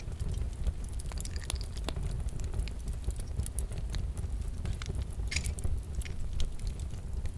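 Log fire crackling: irregular sharp pops and snaps over a steady low rumble of the flames.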